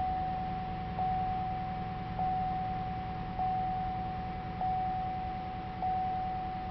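2003 Oldsmobile Aurora's warning chime dinging about once every 1.2 seconds, a single steady tone struck again and again, with a faint steady hum underneath.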